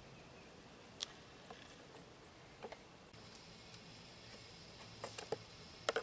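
Scattered light clicks and taps of hands handling the bee package boxes, a few single ones and then a quick cluster near the end. A faint steady high whine comes in about three seconds in.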